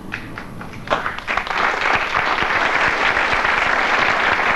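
Studio audience applauding, breaking out about a second in and holding steady.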